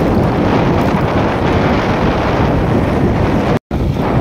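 Wind rushing over the microphone on a moving motorcycle, a steady loud rush with the bike's running underneath. The sound drops out for a split second about three and a half seconds in, where the recording cuts.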